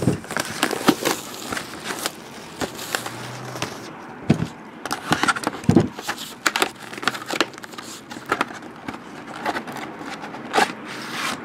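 Packaging being handled and opened by hand: irregular crackles, scrapes and sharp taps.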